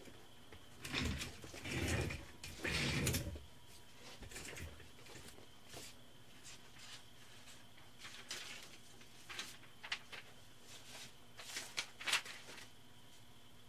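Rustling and handling noises for a couple of seconds near the start, then scattered light clicks and creaks, over a faint steady hum.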